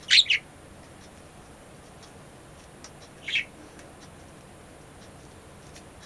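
Budgerigar chirping: a quick two-note chirp right away, then one more short chirp about three seconds later.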